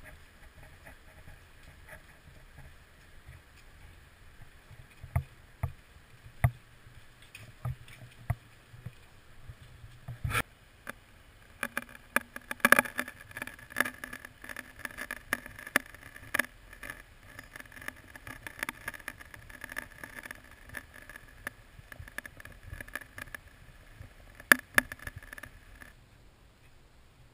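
Shallow river water gurgling and splashing over rocks, with many sharp clicks and knocks; it cuts off abruptly near the end.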